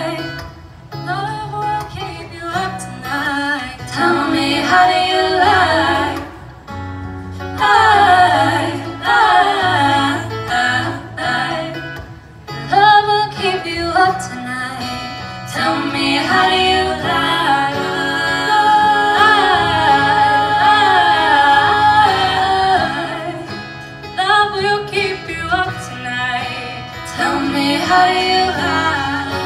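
Female a cappella group singing in close harmony, several voices at once over a low sustained bass part, with sliding vocal runs.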